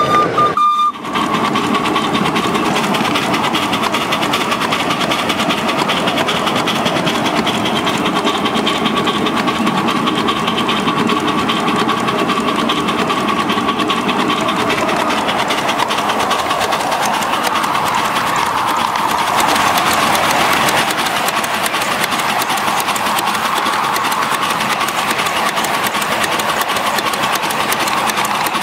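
5-inch gauge live-steam model of a South African Railways class 23 4-8-2 locomotive under way, its exhaust beats coming fast and evenly, with a steady high tone running over them.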